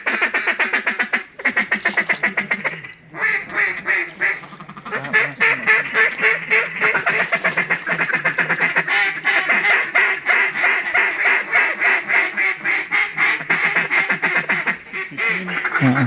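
Duck call blown in a long run of rapid quacks, a fast chatter with brief breaks about one and three seconds in.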